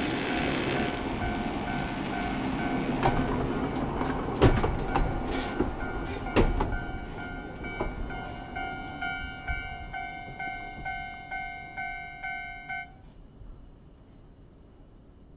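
The Ikoma Cable's 'Doremi' funicular car rumbling past close by, its wheels clicking sharply over the rail joints, loudest about four and a half and six and a half seconds in. A level-crossing warning bell rings a repeating chime about one and a half times a second over it and cuts off suddenly near the end.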